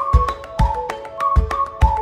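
Background music: a low drum beat under short pitched notes, with a higher held melody line coming in at the start.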